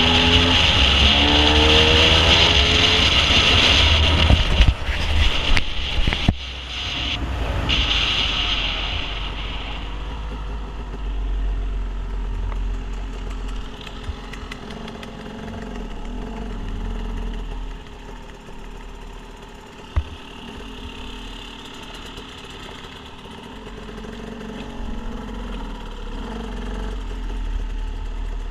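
A motor running, rising in pitch at first, with a loud hiss over it for the first several seconds, then settling to a steady low rumble. A few sharp knocks come through around the middle.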